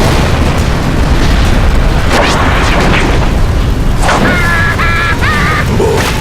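Cartoon sound effect: a long, loud rumbling blast that runs on without a break, with a character's high squeaky vocal yelps about four seconds in.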